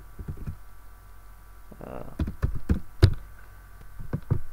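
Computer keyboard being typed on: a few irregular clusters of sharp, knocking keystrokes, the loudest about three seconds in.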